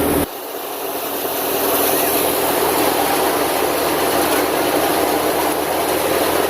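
Tractor-driven wheat thresher running steadily: a loud, dense mechanical rush with a low engine hum underneath. Shortly after the start the low hum cuts out abruptly and the level dips, then builds back up.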